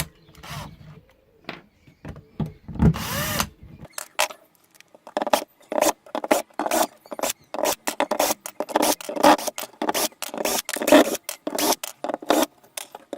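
Power drill-driver spinning briefly to back out a screw about three seconds in, its pitch shifting as it runs. After that comes a long run of quick, irregular knocks and clatters.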